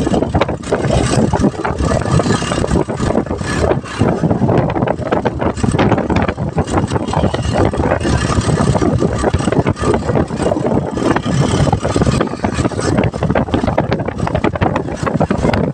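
A small vehicle engine running at road speed in an open-sided vehicle, with wind rushing and buffeting the microphone.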